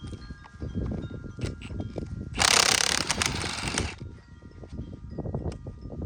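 Wheel lug nuts being worked with a socket tool: scattered metallic clicks and clanks, with one loud noisy burst lasting about a second and a half a little before the middle. Wind chimes ring faintly in the background.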